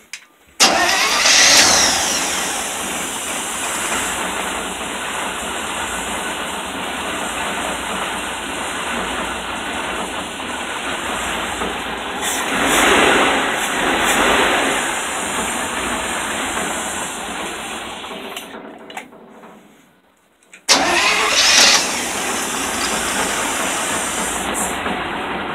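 Carbureted V8 with an open four-barrel carburetor starting up and running, blipped by hand at the throttle linkage about halfway through. It fades out about three-quarters of the way in, then starts again and settles into running.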